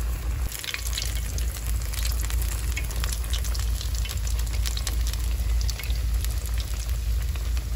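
Oat-and-potato cakes frying in hot oil in a cast-iron skillet: a steady crackling sizzle of many small pops, growing busier about half a second in, over a low rumble.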